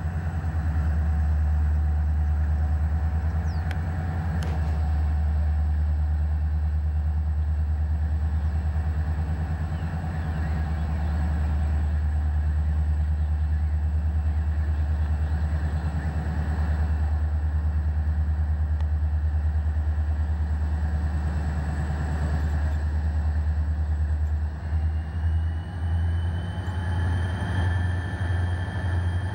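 Diesel freight locomotives running with a deep, steady engine rumble. Near the end the rumble turns pulsing and a rising whine comes in.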